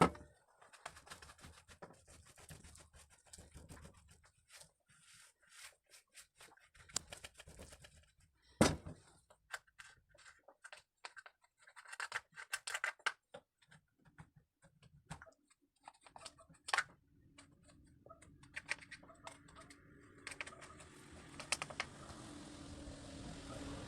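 Scattered clicks, scrapes and light knocks of small chainsaw parts and tools being handled as a Stihl MS 181 is taken apart, with sharper knocks about a third and two-thirds of the way through. A faint steady hum comes up near the end.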